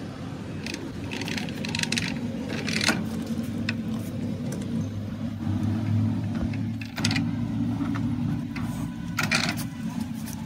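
A steady low mechanical hum with irregular metallic clinks and scrapes, about half a dozen of them, the strongest near 3 s and again near 9 s.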